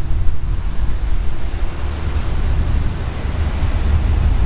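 SRT Hitachi diesel-electric locomotive idling at a standstill: a steady, loud, low rumble with a rushing noise over it.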